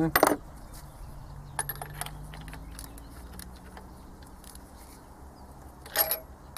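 Metal clinks and clicks of hand tools and parts being handled while a Delphi diesel injector is turned and seated in its bore. There is a sharp clink right at the start, a few lighter clicks about two seconds in, and a short cluster near the end, over a faint steady hum.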